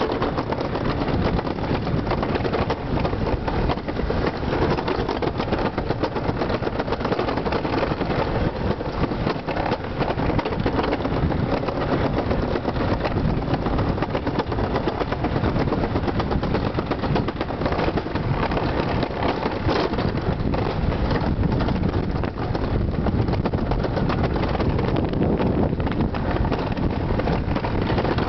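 Summer bobsled running fast down a stainless-steel trough track: a steady rushing noise of the sled on the metal.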